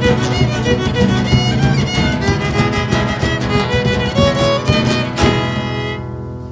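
Background music: a fast violin melody over guitar accompaniment, ending on a final struck chord about five seconds in that rings and fades away.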